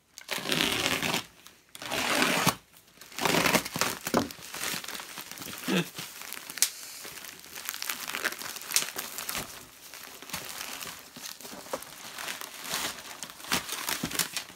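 Packaging being torn open and unwrapped by hand. Three loud crinkling rustles come in the first four seconds, then lighter crackling and rustling with scattered sharp clicks.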